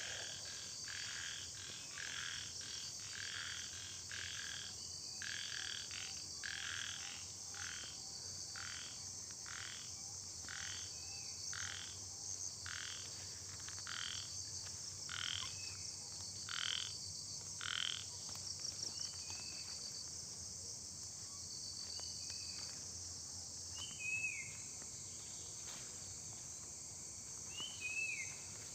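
Monsoon frogs croaking in a regular series, a little over one call a second, that stops a little past halfway, over a steady high-pitched chorus of crickets and other insects. A few short, falling chirps sound in the later part.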